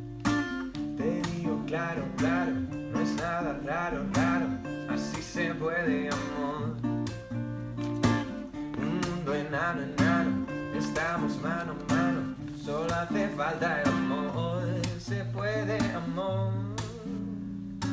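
Acoustic guitar strummed slowly as a ballad, with a voice singing a wavering melody over the chords.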